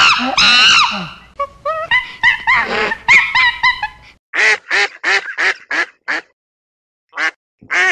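Waterfowl calling: a rapid string of short nasal quacking calls, about four a second, with a higher squealing call near the start and one more call near the end after a short pause.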